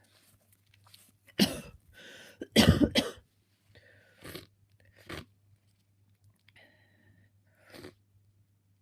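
A person with a cold sneezing: a sharp sneeze about a second and a half in, a short gasping breath, then a louder sneeze about three seconds in, followed by a few short sniffs.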